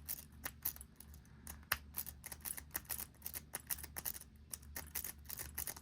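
A Quint rake lock pick being raked in a lock, with quick, irregular light metallic clicks and scraping as it scrubs the pins.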